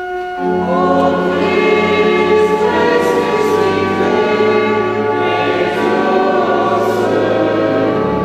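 A church congregation singing a refrain with organ accompaniment, led by a cantor. Sustained organ notes sound first, and the voices join about half a second in.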